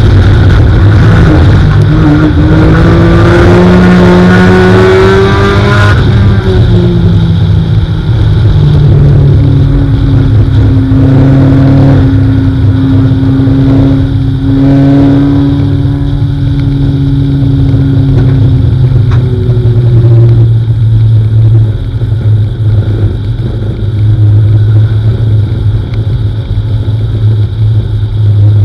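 Four-cylinder dirt-track race car's engine heard from inside the cockpit at racing speed. Its pitch climbs over the first few seconds, drops sharply about six seconds in as the driver lifts, holds fairly steady through the middle, and eases off to lower revs after about twenty seconds.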